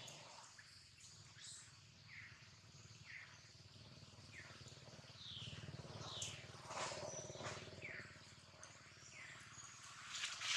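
Faint bird calls: short downward-sliding chirps repeating roughly once a second, with a few brief high whistles.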